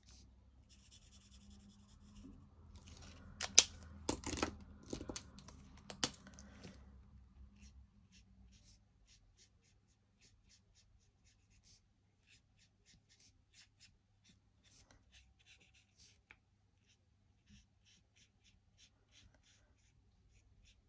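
Felt-tip marker strokes scratching faintly on card stock as a small shape is coloured in. There are a few sharp clicks and knocks between about three and six seconds in.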